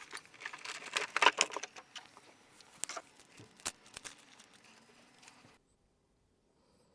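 Rustling and small clicks of packaging and card contents being handled, busiest in the first couple of seconds and thinning out, then cutting to dead silence about five and a half seconds in.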